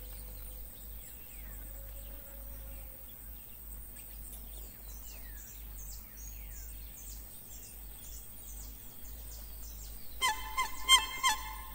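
Forest ambience of birds and insects: many short high chirps, each dropping in pitch, over a steady high-pitched buzz. About ten seconds in, a bowed sachaguitarra comes in with short, violin-like notes that are much louder.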